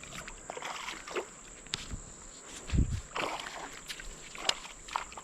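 Irregular splashing and sloshing of creek water while a hooked smallmouth bass is played toward the angler, with one dull low thump near the middle.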